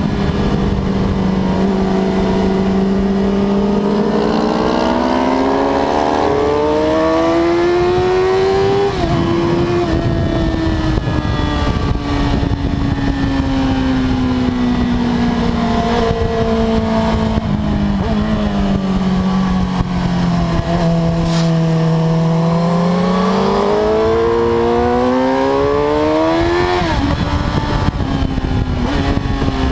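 Suzuki GSX-R1000 K5's inline-four engine pulling hard on track, heard from the bike with steady wind rush. The engine note climbs for several seconds and drops suddenly at a gear change about nine seconds in, sinks slowly, then climbs again to another sudden drop near the end.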